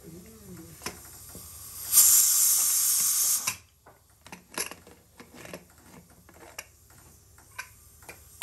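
Pressure cooker's leftover steam hissing out through the vent for about a second and a half as the whistle weight is lifted, then cutting off sharply. Scattered light metal clicks and knocks follow as the cooker's lid is worked open.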